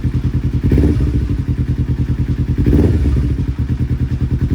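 2009 Kawasaki Ninja 250's parallel-twin engine idling while still a little cold, sounding pretty good, with two short throttle blips, about a second in and again near three seconds.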